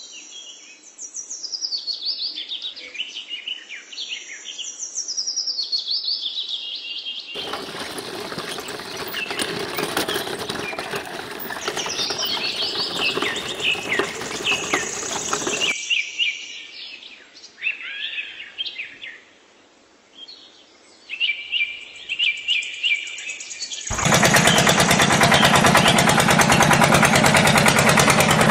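Birds chirping and singing, with a steady hiss over them for several seconds in the middle. About 24 seconds in, a small electric motor starts up and runs steadily and loud, driving a miniature belt-driven water pump.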